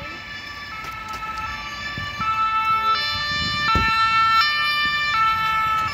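German two-tone emergency siren (Martinshorn) on a Red Cross EMS command car, alternating between a low and a high note about every three-quarters of a second. It grows louder about two seconds in as the vehicle comes closer.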